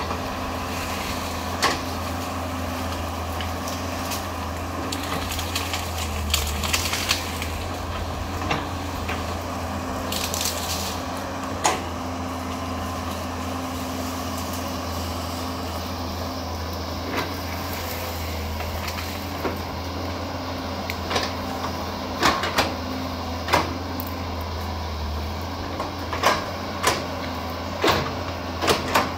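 Caterpillar 320C L excavator's diesel engine running steadily with a low hum as the bucket tears through brush and small trees. Sharp cracks, snaps and knocks of breaking wood and the working bucket come in clusters.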